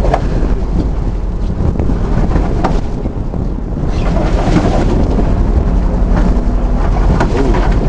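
Heavy wind buffeting the microphone on a fishing boat at sea, over the low rumble of the boat's engine and the wash of the sea against the hull.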